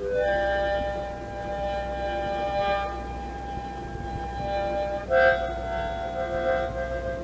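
Harmonica playing slow, long-held chords, moving to a new chord about five seconds in, over a steady low hum.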